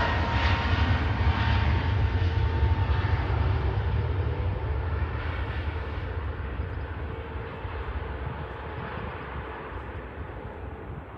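Jet airliner's engines at takeoff thrust during the takeoff roll: a deep rumble with a steady whine, fading gradually as the aircraft moves away down the runway.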